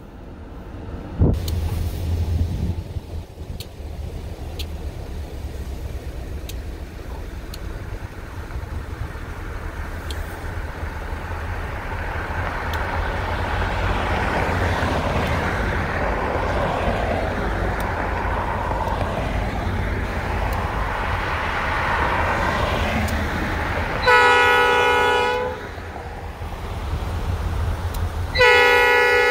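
Approaching freight locomotive's horn sounding a chord of several notes, a short blast about 24 seconds in and a longer one starting near the end, as for a grade crossing. Before it, a vehicle passes on the road over a steady low rumble.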